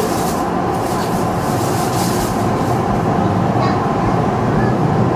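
Tokyu Toyoko Line commuter train running slowly through pointwork, heard from just behind the driver's cab: a steady rolling rumble with several clicks of the wheels over the points and rail joints in the first few seconds, growing a little louder as it gathers speed.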